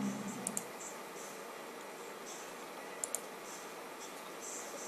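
Computer mouse double-clicking twice, about half a second in and again about three seconds in, over steady room hiss, with a brief low voice sound at the very start.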